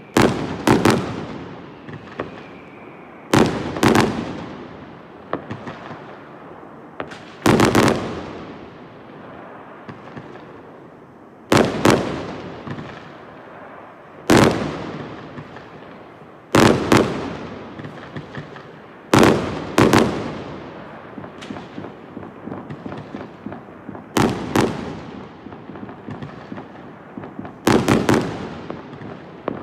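Fireworks bursting: a loud bang every few seconds, some in quick pairs, each followed by crackling that dies away.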